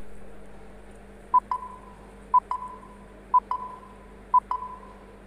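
Countdown-timer sound effect: four electronic pings, about one a second, each a quick double tick with a short ringing tail. A softer sound fades away over the first second.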